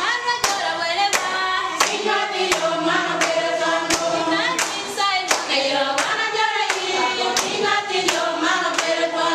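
A group of women singing a welcome song together, clapping their hands to a steady beat of about three claps every two seconds.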